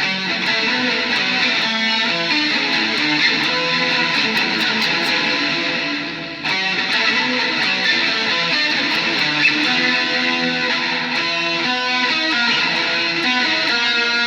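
Guitar being strummed and played without a break, dipping briefly about six seconds in before the playing comes back in.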